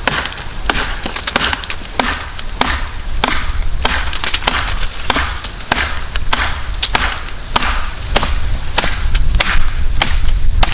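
Mini parang (a short machete) chopping into a thick fallen hickory log: a steady run of sharp blade strikes on the hardwood, about three every two seconds.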